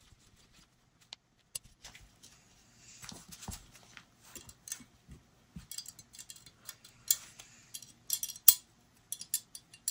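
Irregular small metal clicks, taps and scrapes from handling a Taurus 856 revolver while its cylinder-release thumb piece and screw are fitted back on. The sharpest click comes near the end.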